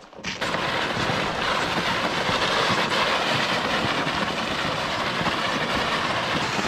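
Toboggan runners sliding over an ice-glazed road, a steady scraping hiss with a low rumble that starts suddenly about half a second in.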